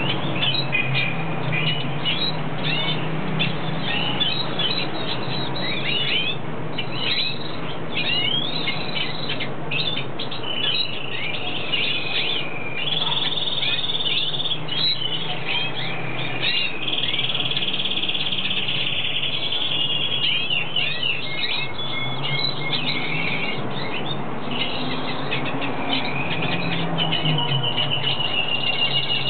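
Hooded siskin singing in breeding season: a long, rapid twittering song of quick chirps, broken by several longer held trills about halfway through and again near the end, over a low steady hum.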